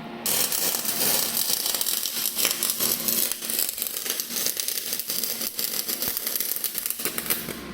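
MIG welding arc from a Kemppi FastMIG 420 running 1.2 mm aluminium wire: a loud, steady crackling hiss that strikes up abruptly just after the start and cuts off about seven seconds in.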